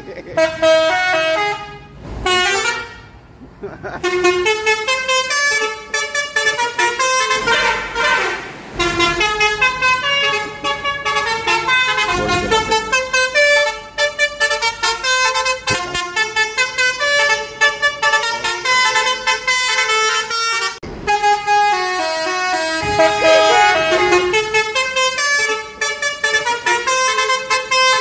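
Basuri telolet musical horn on an intercity bus playing a fast melody of short, loud pitched notes, with a brief lull about two seconds in.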